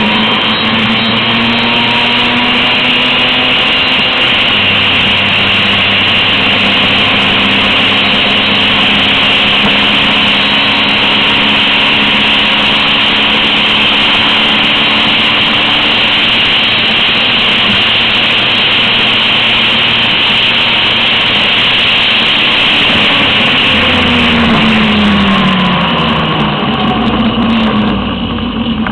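Vintage two-stroke Vespa scooter engine running steadily at speed under a loud hiss, pulling up a mountain climb. Near the end the engine note falls as the scooter slows down.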